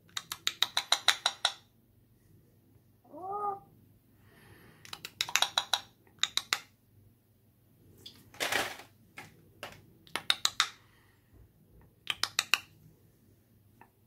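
Black-capped lory making rapid trains of sharp clicking chatter several times, with one short meow-like call that rises and falls about three seconds in and a brief raspy burst a little past the middle.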